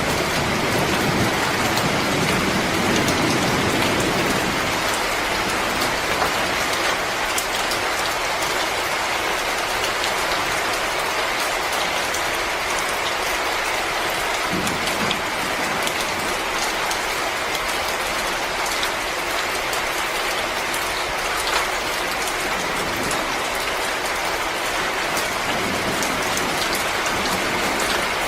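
Crackling wood fire: a dense stream of small pops and snaps over a steady hiss, with a low rumble swelling in the first few seconds and again about halfway.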